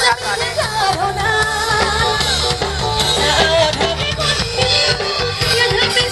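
Loud music with singing over a steady bass, played through a procession vehicle's tall stack of loudspeakers.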